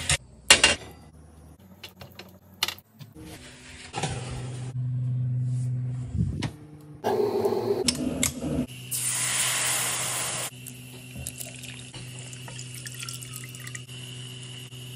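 Kitchen handling sounds: sharp clicks and knocks at the start, then loud bursts of running and pouring liquid in the middle, over a steady low hum that carries on, quieter, to the end.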